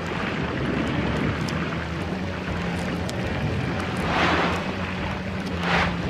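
Underwater ambience: a steady low rumble and hiss, with two louder water whooshes about four seconds and just under six seconds in, the second the loudest.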